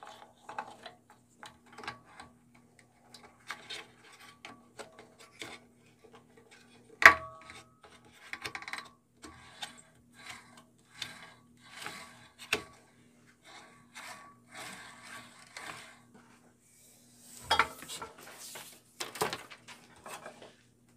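Hand-turned drive wheel and belt of a Craftsman 10-inch three-wheel bandsaw: a run of rubbing, scraping strokes about one a second, with a few sharp clicks, the loudest about seven seconds in.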